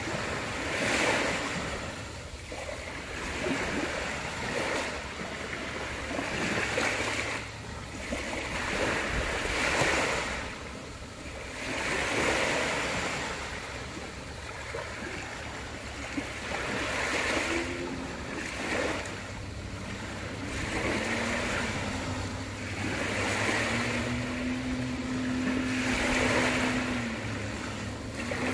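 Small waves washing onto a beach, each wash swelling and fading about every two seconds. Under the waves runs a faint steady low hum, and from about two-thirds of the way through a held droning tone comes in.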